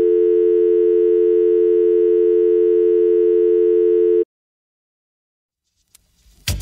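Steady electronic test tone accompanying colour bars, one unbroken pitch that cuts off suddenly about four seconds in. After a couple of seconds of silence, loud dance music starts just before the end.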